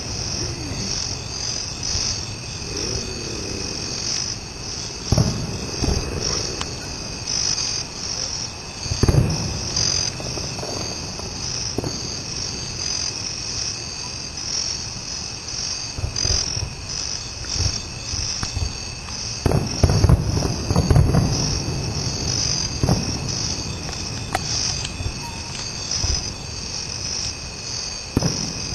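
Night insects chirring in a steady, pulsing high chorus, with distant fireworks going off as low booms every few seconds, thickest about two-thirds of the way in.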